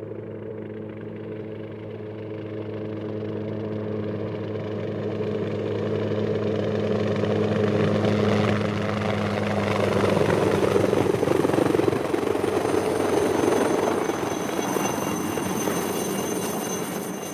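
Helicopter flying in: a steady low rotor hum grows louder and fuller, peaking about ten to twelve seconds in, with a high turbine whine in the later part, then easing off near the end.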